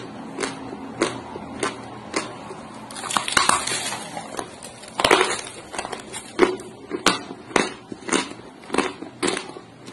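A chunk of dry white Turkestan clay crunching between the teeth: steady chewing crunches about one every half second, a bite into the chunk a few seconds in with crumbling, and a louder sharp crunch about five seconds in, then the regular chewing crunches again.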